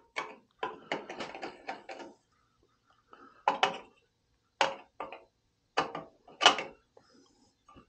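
Irregular clicks and light taps from handling a small tool near a metal damper control box: a quick cluster in the first two seconds, then single clicks about a second apart.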